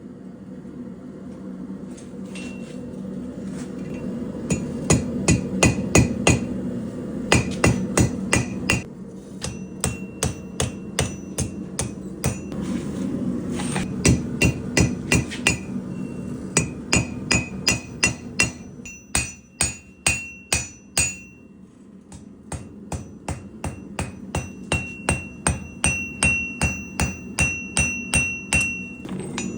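Hand hammer forging high-carbon Damascus steel on an anvil: runs of sharp blows at about three a second with a bright metallic ring, broken by short pauses. A steady low hum runs underneath.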